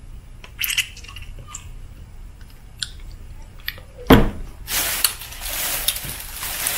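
A pickle being bitten and chewed: a few small, wet crunches. About four seconds in there is a sharp knock, followed by a couple of seconds of hissing rustle.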